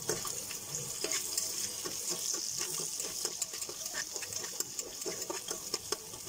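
Sliced onions sizzling in hot oil in an aluminium pressure cooker, with a metal spoon scraping and clicking against the pot as they are stirred. The onions and sugar are frying until they brown, the first step of a pulao.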